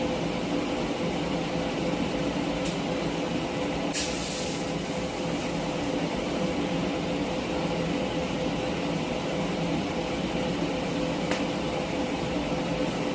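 Steady hum of shop machinery with a constant tone. Over it come a few brief crackling bursts of a TIG arc striking for tack welds at low amperage, the longest and loudest about four seconds in and lasting about half a second.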